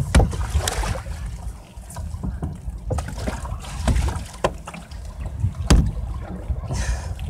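Canoe being paddled: a handful of irregular knocks and splashes from the paddles against the hull and water, with a hissing splash near the end, over a low rumble of wind on the microphone.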